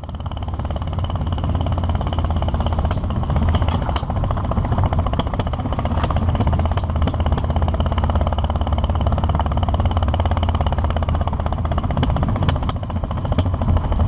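Single-cylinder motorcycle engine running steadily while riding, a low, rapid pulsing.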